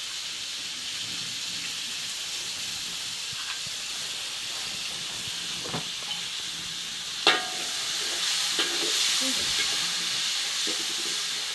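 Food sizzling steadily in hot oil in a wok over a wood fire. A single sharp metallic clink sounds a little past seven seconds in.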